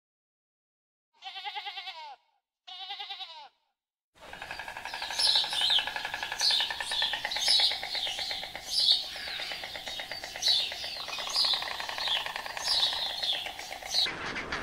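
Two short, wavering bleats, then a dense chorus of birds chirping, with a sharp high chirp about once a second over a steady layer of calls that stops abruptly near the end.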